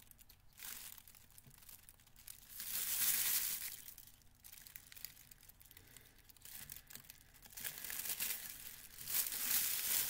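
Thin plastic bag crinkling and rustling as it is handled and pulled at, in swells: a loud stretch about two to four seconds in and another building up near the end.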